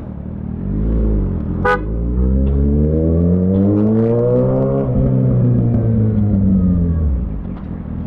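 Kawasaki Ninja ZX-6R's inline-four engine, ridden in town: a short blip about a second in, then the revs climb steadily under acceleration for about four seconds and fall away as the throttle eases off. A brief beep cuts in about a second and a half in.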